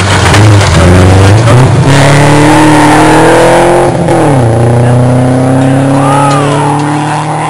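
Rally car accelerating hard on a gravel stage, its engine revving up through the gears. There is a drop in pitch about four seconds in as it shifts, and the engine fades slowly as the car pulls away.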